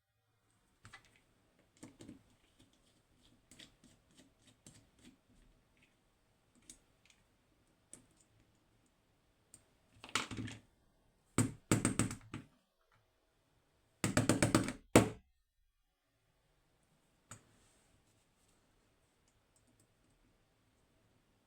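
Small metal clicks and taps from a lock being taken apart with an Allen key and a tool for its retaining bar. Three louder rattling bursts come about ten, twelve and fourteen seconds in.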